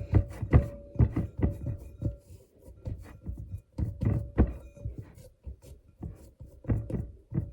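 Hands squishing and pressing a wet sourdough dough in a bowl, pulling it off the sides and pushing it together: irregular soft thuds and squelches, one or two a second.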